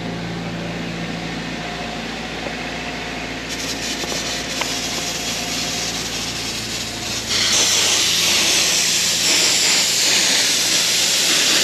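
Pop-up sprinkler heads hissing as compressed air drives the remaining water out of the zone's lines, spitting a mist of water and air. The hiss grows about three and a half seconds in and jumps much louder about seven and a half seconds in as a nearby head blows out, over a steady low engine hum from the air compressor.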